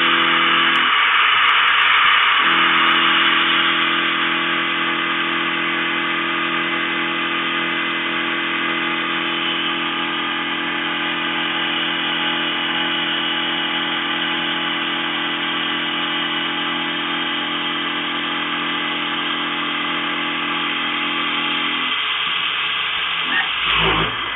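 CNC milling machine cutting steel on an adaptive toolpath: a steady cutting and spindle noise with a low machine hum. The hum drops out briefly about a second in and again near the end, just before a short thump.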